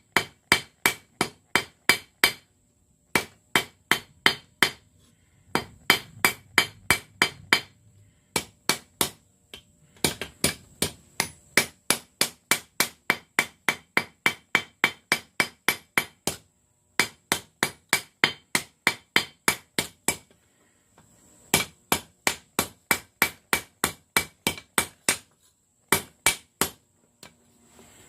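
Hand hammer blows on hot rail steel over an anvil, about three ringing strikes a second in runs broken by short pauses, as the drawn-out taper of a stake anvil's horn is rounded.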